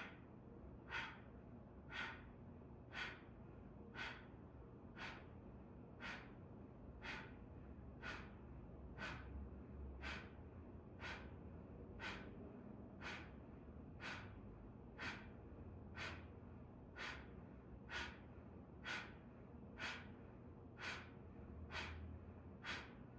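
Short, forceful exhalations out through the nose, about one a second in a steady rhythm: qigong fire breathing (Qi Hua).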